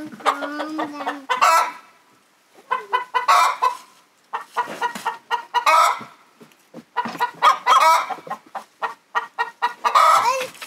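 Domestic hens clucking and squawking in a coop, a run of short calls coming every second or two with a couple of brief lulls.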